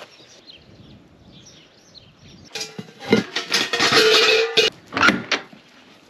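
A barn door rattling and scraping open for about two seconds, with a brief squeal near the end of it, followed by a shorter clatter.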